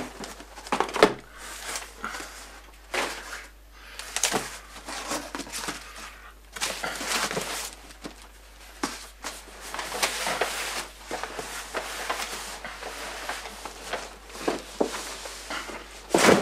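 Cardboard boxes being handled: irregular knocks and bumps with longer scraping, rustling stretches as boxed fireworks are set down and a large cardboard carton is shifted on the table.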